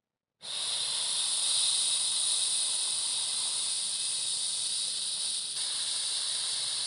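Breadcrumb-coated mutton chops frying in hot oil: a steady sizzling hiss that starts suddenly about half a second in.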